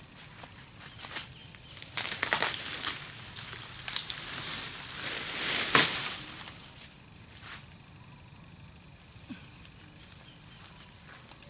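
Footsteps crunching and rustling through dry fallen oil palm fronds and undergrowth, with a sharp crack about six seconds in as a fallen palm fruit bunch is pulled free and lifted. Insects buzz steadily and high in the background.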